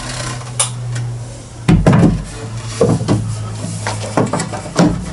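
Wooden boxing-in panels being handled and fitted into place: several irregular knocks and clunks, over a steady low hum.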